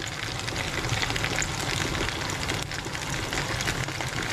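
Food sizzling and crackling in a pan on the stove, a steady hiss full of small pops, over a low steady hum.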